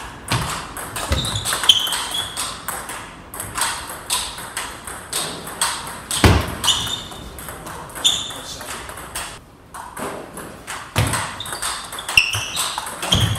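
Table tennis rallies: repeated sharp clicks of the celluloid-type ball striking the paddles and bouncing on the table, with low thuds of footwork and a few short shoe squeaks on the wooden floor.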